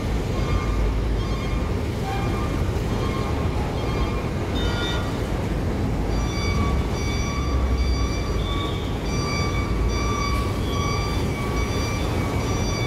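Steady low diesel rumble of idling heavy vehicles at a ferry's loading ramp, the nearest a Scania coach standing beside the ramp. A repeating high beeping pattern sounds over it, clearer from about six seconds in.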